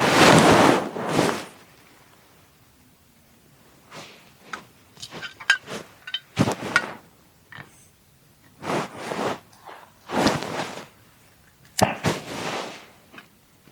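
Irregular bursts of rustling and scraping, the loudest lasting about a second and a half at the start, then shorter ones every second or so.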